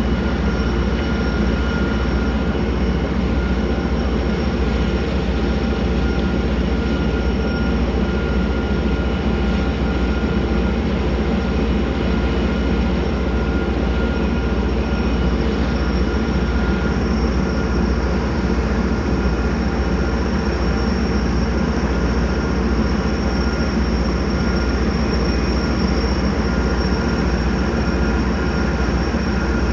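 A barge's engine running steadily while under way: a constant heavy drone with a few unchanging whining tones above it.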